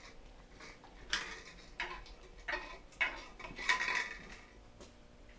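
A handful of sharp clattering knocks of hard objects being handled, about five in all between one and four seconds in, the last the loudest with a brief ringing rattle.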